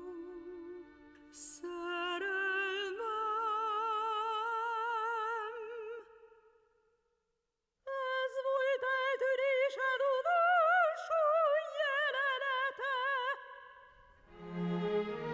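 Solo soprano singing a slow operatic lament with wide vibrato, holding long notes. The voice stops for about a second and a half midway, then resumes higher and louder. Lower notes, typical of cello or low strings, come in near the end.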